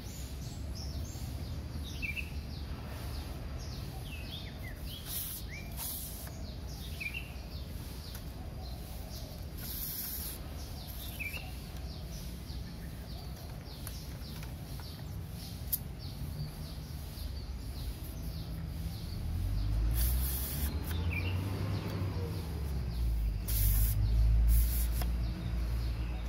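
Outdoor ambience with short bird chirps every few seconds over a steady low background noise. About two-thirds of the way through, a low rumble swells and grows louder toward the end.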